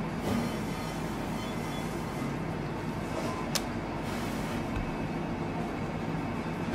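Steady machine hum and rumble of a commercial kitchen, with one sharp click about three and a half seconds in.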